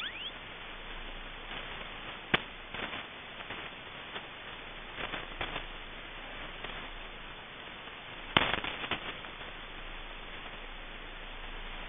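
Shortwave receiver audio: a steady hiss with sharp clicks and crackles of static, loudest about eight seconds in. It opens with the tail of a whistle sweeping back up in pitch as the sweeping station's signal passes through the tuned 5000 kHz frequency.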